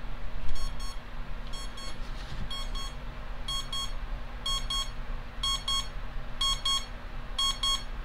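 Onn digital alarm clock's chime alarm going off: pairs of short electronic beeps about once a second, starting about half a second in and getting louder.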